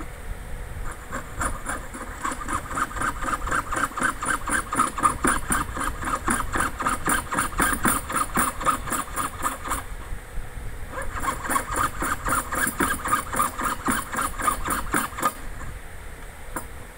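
Jeweller's piercing saw cutting sheet brass by hand: rapid, even rasping strokes, several a second. They stop for about a second near the middle, start again, and stop a couple of seconds before the end.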